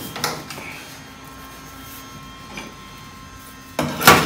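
Thin sheet-steel patch panel handled and pressed by hand against a steel body corner. There are faint light handling noises, then, near the end, loud rasping and flexing of the sheet as it is pushed flat.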